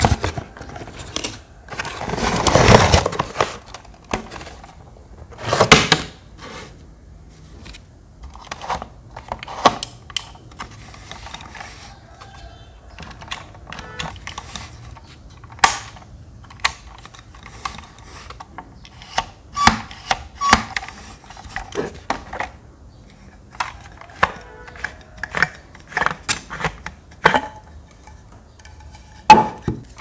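Hands unpacking a small plastic fan from its cardboard box: a scraping, rustling slide about two seconds in and again near six seconds. Then scattered light clicks and knocks as the hard plastic fan and its base are handled and taken apart.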